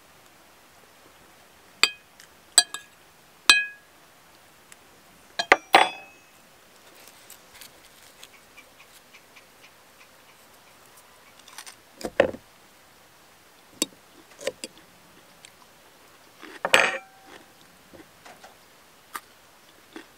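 Eating at a table: a fork clinks several times on a glass plate, some clinks ringing briefly. Three louder, crisp crunches come about 6, 12 and 17 seconds in as a raw onion is broken apart by hand.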